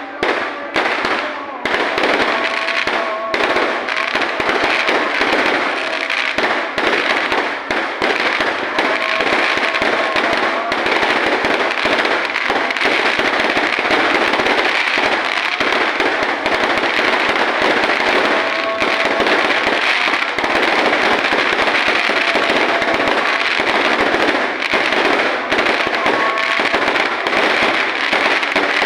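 Fireworks going off in a dense, continuous barrage: separate bangs in the first couple of seconds, then merging into one unbroken crackle of many overlapping bursts.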